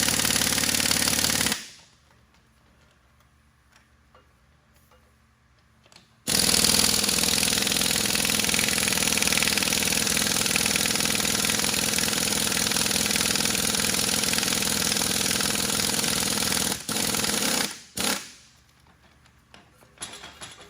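A power tool runs in loud bursts. One burst stops about a second and a half in. A long run of about ten seconds starts around six seconds, breaks briefly near seventeen seconds and resumes, and a last short burst comes around eighteen seconds.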